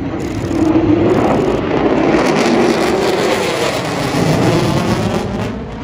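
Fighter jet engine roar from an aircraft pulling a hard turn overhead, a loud steady rushing with a wavering low rumble that dips in pitch and fades near the end as the jet moves away.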